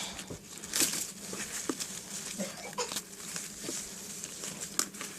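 Scattered soft rustles and small clicks of ribbon and thread being handled as thread is wrapped around the centre of a hair bow and pulled tight.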